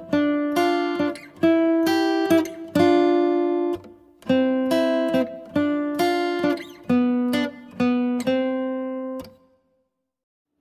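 Intro music: a slow, unaccompanied melody of plucked notes and chords on an acoustic guitar, each note ringing and decaying, fading out about nine seconds in.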